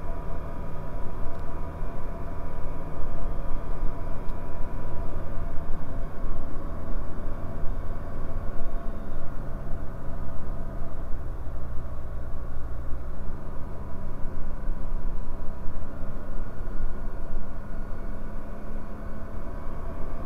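Bristell NG5 light aircraft's engine and propeller droning steadily, heard inside the cockpit. About nine seconds in, the engine note steps down in pitch for a few seconds, then comes back up at about thirteen seconds.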